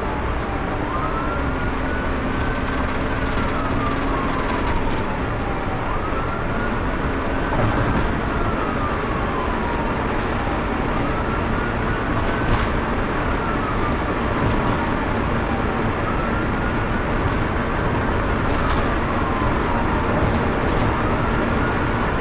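Police car siren on a slow wail, its pitch rising and falling about once every four seconds, heard from inside the moving patrol car over steady engine and road noise.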